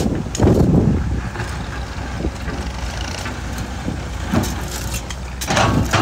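Komatsu PC200 hydraulic excavator's diesel engine running steadily while its bucket digs into red soil and stones. There are louder scraping bursts about half a second in and again near the end.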